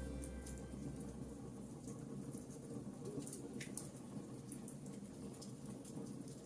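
Wood fire crackling faintly: scattered sharp snaps and pops over a low, steady rush of burning.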